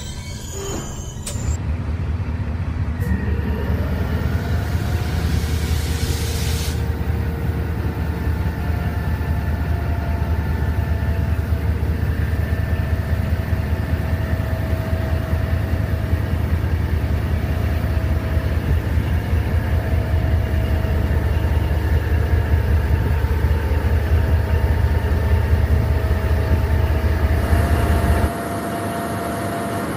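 An idling engine: a steady, loud low rumble with faint, steady whining tones above it. It starts about a second and a half in and cuts off abruptly near the end.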